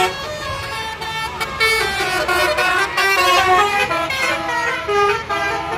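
Tour bus's telolet basuri horn playing a melody: several horn tones at once, stepping from note to note a few times a second, over the rumble of passing traffic.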